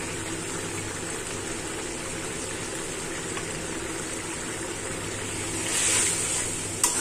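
Watery potol and brinjal curry simmering in a karahi, a steady bubbling hiss. A brief louder hiss comes about six seconds in, and a sharp click just before the end.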